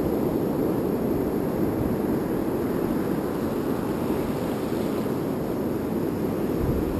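Steady low rumble of wind buffeting the camera microphone, mixed with the wash of surf breaking on the beach.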